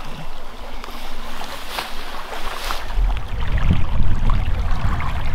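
Wind buffeting the microphone, with a low rumble that grows heavier about halfway through, over the steady rush of a small river.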